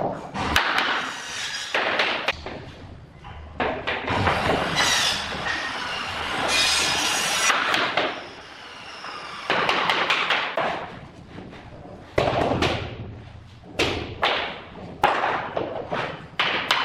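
Hammer striking a tapping block to knock floor planks tight at their joints, in irregular sharp knocks. Between the taps come longer stretches of scraping and rustling as planks are shifted on the foam underlay.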